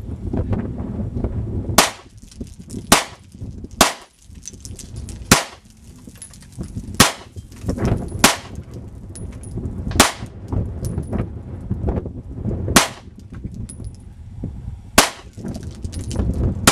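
A GLOCK 26 subcompact 9mm pistol being fired: nine single shots at an irregular pace, one to three seconds apart, over a low rumble between them.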